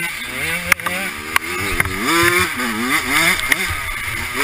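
Dirt bike engine being ridden hard on a rough trail, its pitch rising and falling again and again as the throttle is worked. A few sharp knocks sound over it.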